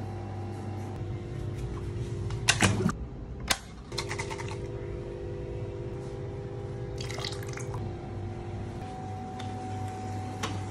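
Steady low electrical hum of aquarium equipment, with short clatters and water splashes from rinsing and handling, the loudest about two and a half seconds in.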